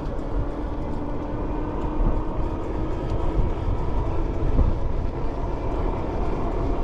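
Steady low rumble of riding noise on an Ecotric 500 fat-tire electric bike, mostly wind and road noise, with a faint steady hum running under it.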